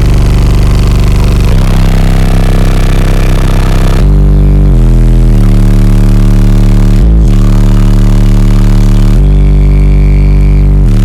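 Car audio system with sixteen 12-inch subwoofers playing a bass track very loud: long, deep bass notes that step to a new pitch every second or two.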